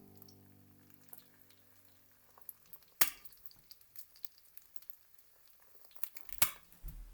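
Food sizzling in a frying pan, a soft crackle with scattered small pops, and two sharp knocks about three and six seconds in. A few low held tones fade away in the first few seconds.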